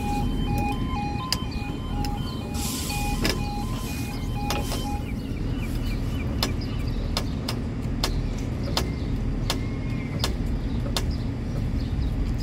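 Level crossing warning alarm sounding in alternating two-tone pulses, cutting off about five seconds in, over a steady low rumble. Afterwards a regular series of sharp clicks follows, roughly one and a half a second.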